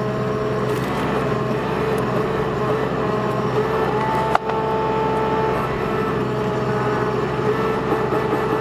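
Bobcat mini excavator's diesel engine running steadily under load as the arm pulls up on a tree, with a brief higher whine and a single sharp knock about four seconds in.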